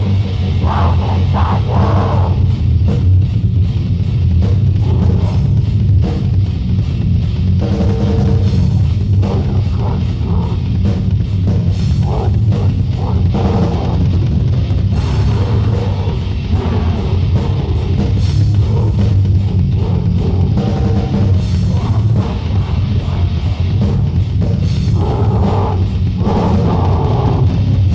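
Heavy metal demo recording: bass-heavy distorted guitar over fast, dense drumming with cymbals, with vocals coming in at times.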